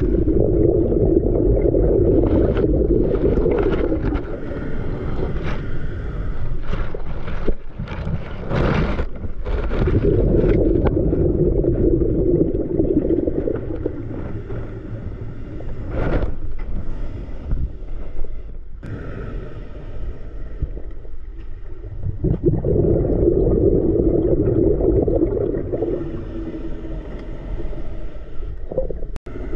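Scuba diver breathing through a regulator underwater: three long exhalations of burbling bubbles, about ten seconds apart, with quieter inhalation hiss and a few clicks and scrapes in between.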